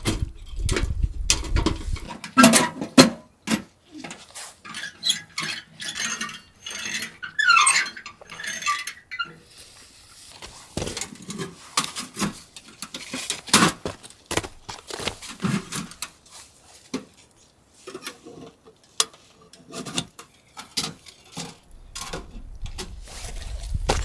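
Irregular clicks, knocks and clinks of hard objects being handled, with a few squeaky scraping sounds about a third of the way in.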